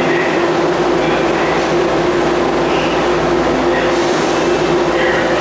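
BART train standing at the station platform, its onboard equipment giving a steady, loud hum with several held low tones, while its doors close.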